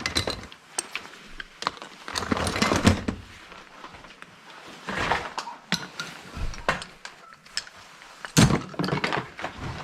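Hand tools being handled and sorted from tool bags: irregular clatter, clicks and knocks, with one louder knock near the end.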